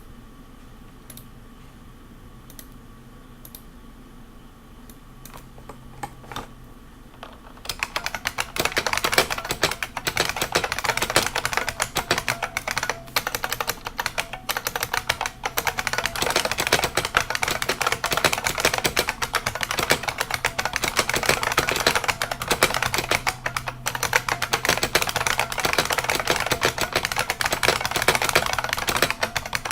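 IBM Model M keyboard's buckling-spring keys: a few scattered keystrokes, then fast, continuous typing from about eight seconds in.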